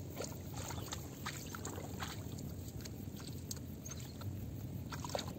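Muddy water sloshing in a flooded rice paddy, with scattered small splashes as rice seedlings are pushed into the mud by hand.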